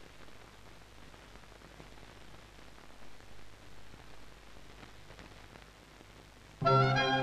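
Faint hiss and light crackle of an old film print's soundtrack, with a low steady hum. Near the end, orchestral music with strings starts suddenly.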